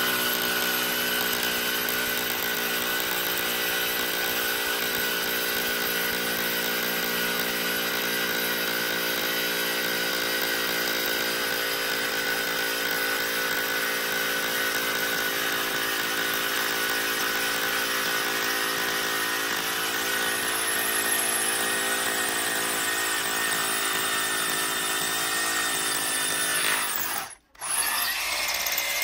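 Dalot corded rotary hammer drill hammer-drilling into a concrete slab, its motor and hammer mechanism running steadily under load. Near the end it cuts out for a moment, then starts again briefly.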